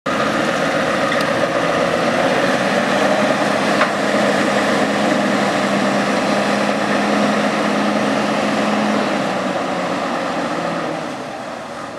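Scania S580's 16-litre V8 diesel running steadily at low revs, growing fainter near the end as the truck moves off.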